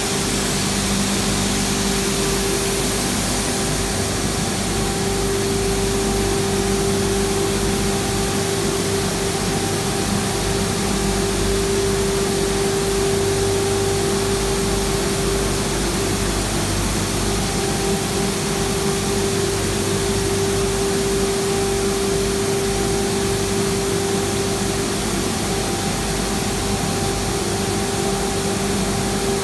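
Roller conveyor shot blast cleaning machine running: a steady machine hum with a strong constant tone over an even hiss.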